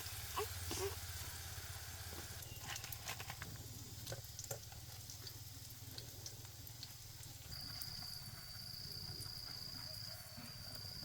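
Food frying in hot oil: a faint sizzle with scattered small pops and crackles over a low steady hum. A thin, steady high-pitched tone joins about two-thirds of the way through.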